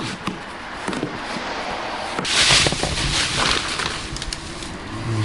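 Packaging being handled as a motorcycle muffler is unboxed: crinkling and rustling with irregular sharp clicks, and a louder rustle about two seconds in. A steady low hum starts near the end.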